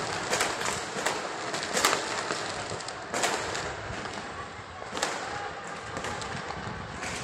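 New Year's fireworks and firecrackers going off across the city: about five sharp bangs at irregular intervals, the loudest about two seconds in, over a steady din of distant noise.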